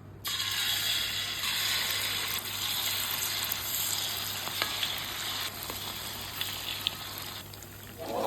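Cucur ranggup batter frying in hot oil: a steady sizzle with a few light clicks, which starts right at the beginning and dies down near the end.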